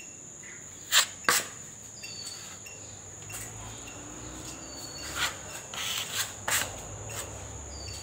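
Two sharp knocks about a second in, then a steel putty knife scraping wall putty across plaster several times in the second half. A steady high insect trill and short repeating chirps run underneath.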